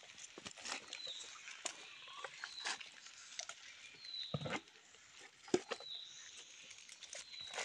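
Mesh fish trap rustling and small live fish pattering and flapping as the catch is shaken out into a plastic bucket, with a clustered knock and rustle about four and a half seconds in. A short high chirp that falls in pitch repeats about once a second behind it.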